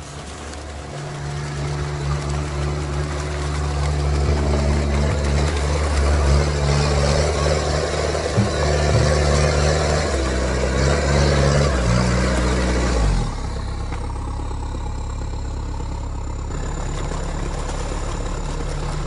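Sherp amphibious ATV's diesel engine working hard as the vehicle pushes through brush and small trees, with branches scraping and cracking against it. About thirteen seconds in, the sound drops suddenly to a quieter, steady engine running.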